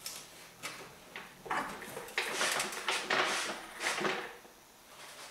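A heavy engine on a wooden cradle is dragged back across a concrete floor: a few knocks, then a few seconds of scraping and rumbling, and it goes quiet near the end.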